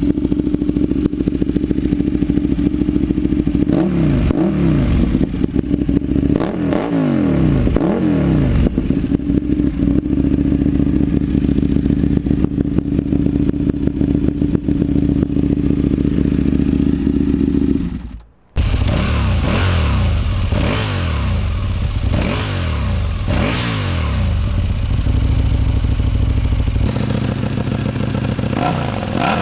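Kawasaki Ninja ZX-6R 636's inline-four engine running loud through a slip-on muffler with almost no baffle, idling with repeated quick throttle blips that rise and fall. About 18 seconds in, the sound drops out for a moment, then comes back with more revving and blips.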